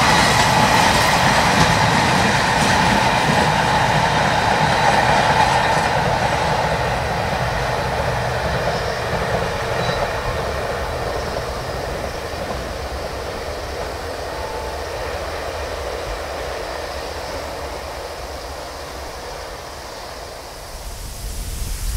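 Freight train of Taki 1000 tank wagons rolling past, its wheels running on the rails, with a thin ringing tone in the first several seconds. The sound fades steadily as the train draws away.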